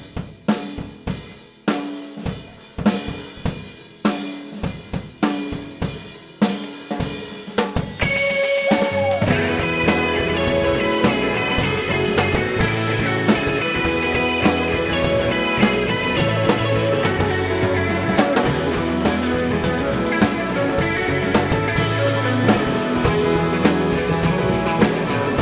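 Live band's instrumental intro: a drum kit plays a beat alone for about eight seconds, then the rest of the band comes in with sustained pitched instruments over a steady beat.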